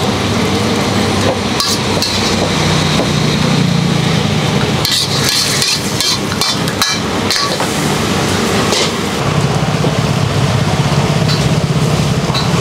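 Metal ladle scraping and clanking against a wok as stir-fried food is scooped and tipped into a takeout box, with a cluster of sharp knocks about five to seven seconds in. Under it runs a steady loud hiss of the wok burner and stall.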